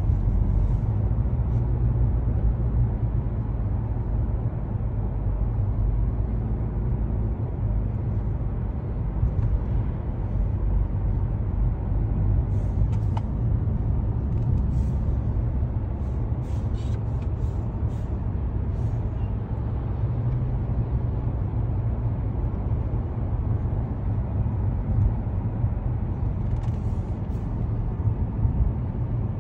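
Steady road and engine noise heard inside a moving car's cabin: a low, even rumble of tyres and engine, with a few faint light ticks in the middle and near the end.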